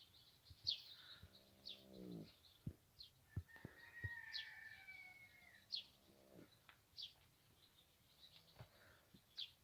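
Faint chirps of small birds, with one longer call in the middle. Twice, about two seconds in and again about six seconds in, a sleeping colt snores, a low breath under a second long each time.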